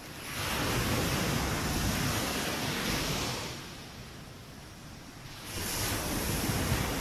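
Ocean waves breaking on the shore: one wave surges in just after the start and dies away about three and a half seconds in, and the next surges in at about five and a half seconds.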